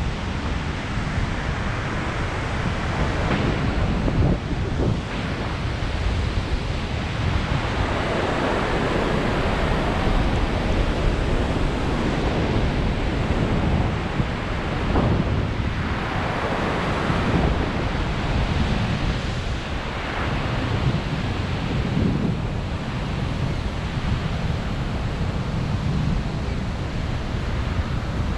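Wind rushing over the microphone of a paraglider in flight, a steady roar of air that swells and eases every few seconds.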